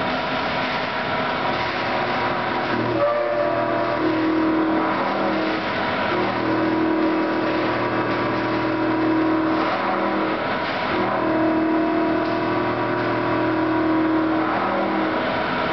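CNC machine cutting the blank for an M39 nut under flood coolant: steady machining noise with spray hiss and a motor hum that breaks off briefly several times.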